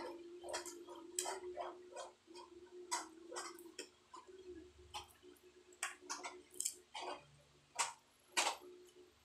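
Close-up eating sounds: irregular wet clicks of chewing and lip-smacking, a few a second, as a man eats wild rat meat picked apart by hand. A steady low hum runs underneath.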